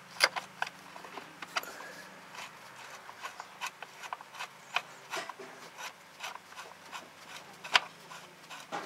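Metal ratcheting wrench clicking in short irregular runs as a bolt is loosened, with a louder clack just after the start and another near the end.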